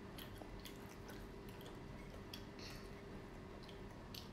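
Faint wet chewing and little mouth clicks of children eating breaded mozzarella dippers, the clicks coming several times a second over a low steady hum.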